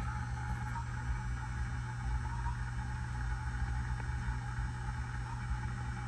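Hunter low-profile ceiling fan running at speed: a steady motor hum with an uneven low rumble and a constant whoosh of air from the blades.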